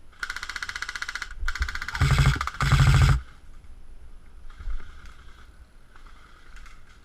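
Airsoft rifle firing in full-auto bursts, a fast rattle of shots: three bursts in quick succession, the last two louder and closer. Fainter firing follows a little later.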